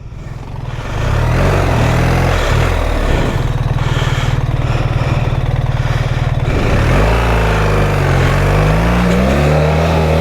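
BMW R 1300 GS Adventure's boxer-twin engine revving under hard throttle on a muddy, sandy climb. It dips briefly at the start, then picks up about a second in. In the second half the revs rise and fall several times as the street-biased tyres struggle for grip.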